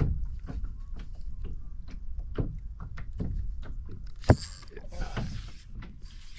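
Scattered light clicks and knocks of fishing gear on a kayak over a low wind rumble, with one sharp loud knock about four seconds in and a short hissing rush after it.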